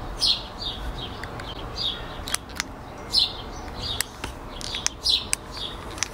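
Key fob buttons clicked several times in quick succession, sharp plastic clicks that get no response because the fob is too cold to work. Birds chirp repeatedly in the background.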